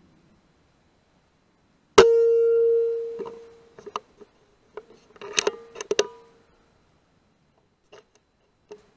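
Air rifle shot about two seconds in: a sharp crack followed by a metallic ring that dies away over about a second. Then come a few seconds of clicks and metallic clatter from the rifle being handled, each setting off the same ring, with a few faint clicks near the end.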